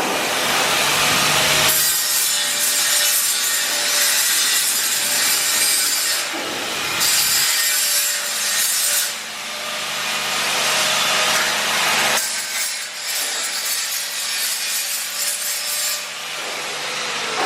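Continuous rasping workshop noise of metal being cut or ground by hand tools or power tools. Its character changes abruptly every few seconds.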